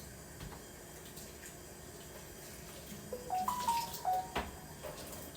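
Water running from a kitchen sink tap as a refrigerator part is rinsed under it. Past the middle, a short tune of held notes steps up and down over the water, with a knock or two.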